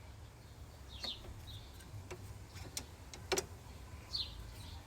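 A few sharp, scattered metal clicks from hand tools working a steel brake line, the loudest a little past the middle, with a bird chirping twice over a low steady hum.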